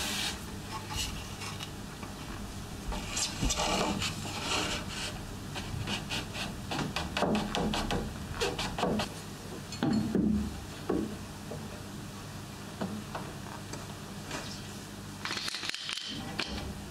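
Pieces of elm being handled and rubbed together on a workbench: a run of short wooden scrapes and knocks. Near the end there is a brief louder clatter as a bar clamp is set against the wood.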